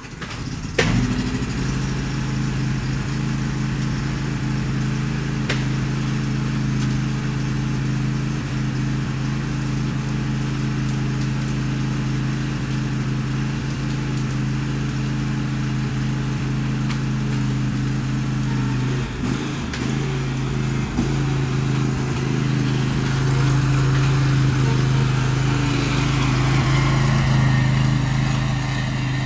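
Tractor engine starting abruptly about a second in and then running steadily at idle, a little louder near the end.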